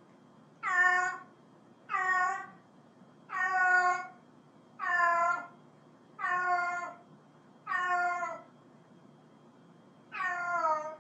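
Domestic cat meowing over and over: seven meows in a steady rhythm about one and a half seconds apart, each falling in pitch.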